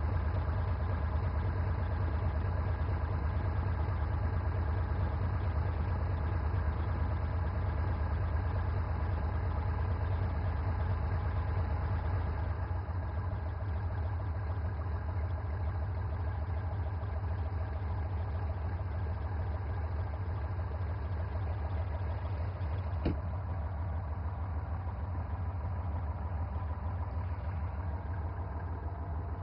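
Single-engine Cessna's piston engine and propeller running steadily at low taxi power, heard from inside the cockpit as a low, even drone. It drops a little in level about halfway through, and a single click sounds near the end.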